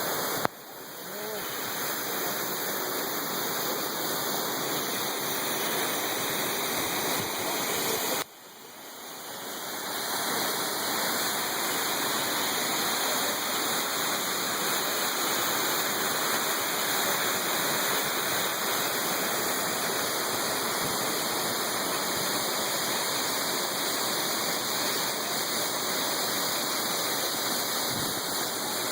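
Steady rush of the Pixquiac waterfall, water falling heavily at the foot of the fall. The sound cuts away sharply twice, about half a second in and about eight seconds in, and swells back over a second or two each time.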